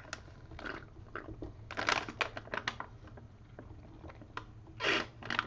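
Light, irregular clicking and tapping of typing on a computer keyboard, with two short hissy sounds about two and five seconds in.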